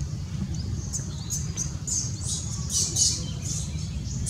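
Short, high-pitched animal chirps and squeaks repeating over a steady low rumble, busiest from about a second in.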